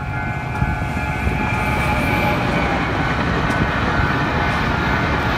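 Passenger train passing close by at speed: a steady, loud rumble and rush of wheels on the rails that builds over the first couple of seconds and then holds.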